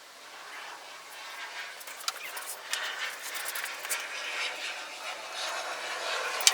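Small metal parts being handled and sorted: a run of light, irregular clicks and rattles over a hiss, with one sharper click near the end.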